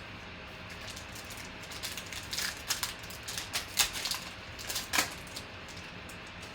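Trading cards and pack wrappers being handled: a run of quick clicks and crinkles over about three seconds, the sharpest two near the end.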